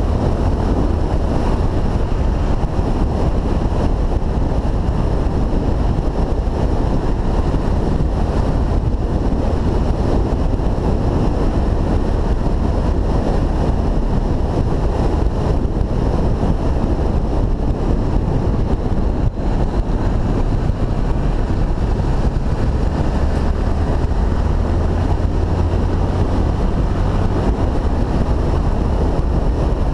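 Steady wind rush on the microphone of a moving Honda XRE300 dual-sport motorcycle, with the bike's single-cylinder engine running under it at a constant pace. The sound is loud throughout.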